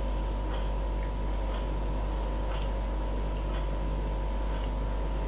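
Steady low electrical hum with faint ticks about once a second.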